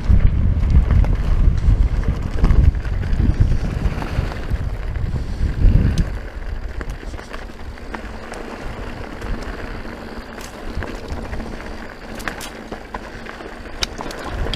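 Heavy wind buffeting the microphone, easing sharply about six seconds in. It leaves the running noise of a mountain bike rolling down a dirt trail, with scattered sharp clicks and rattles.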